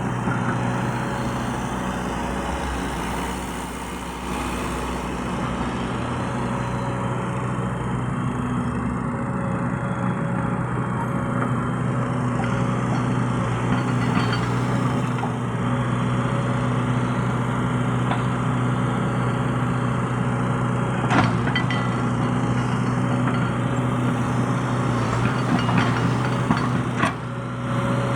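Hydraulic excavator's diesel engine running steadily, with a few sharp knocks in the second half, typical of the bucket or tracks working.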